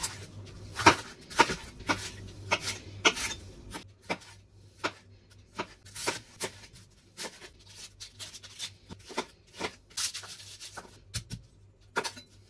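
Chef's knife cutting through red bell pepper, onion and garlic and striking a wooden cutting board in single, irregular cuts, about one or two a second, with a quicker run of cuts near the end.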